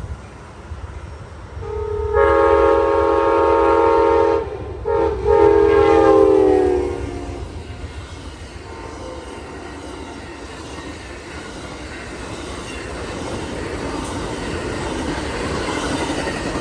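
Multi-chime locomotive horn sounding a long blast, a brief toot and another long blast that drops in pitch as the locomotive passes. Then the steady rumble and rattle of the train rolling by grows louder.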